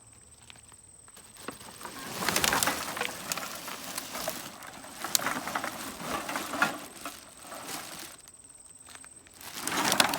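Rain-wet plastic bags full of bottles and cans being shaken and handled, with irregular rustling and crackling and water pattering off. The rustling starts about a second and a half in, eases off near the eighth second, and swells again just before the end.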